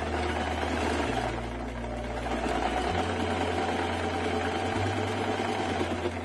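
Singer electric sewing machine running steadily as it stitches fabric, stopping right at the end.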